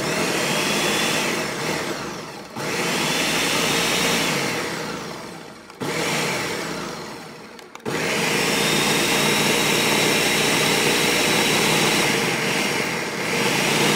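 Countertop blender pulsed on and off, chopping parsley and cilantro in olive oil, lime juice and vinegar. The motor starts suddenly with a whine and winds down when it is released, three short pulses, then a longer steady run near the end.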